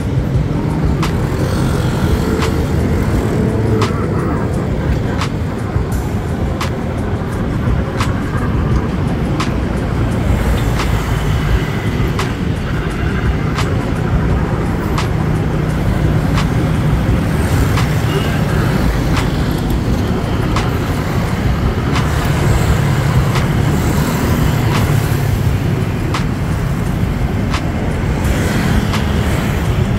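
Steady road traffic: cars and other motor vehicles running past, a continuous low drone of engines and tyres.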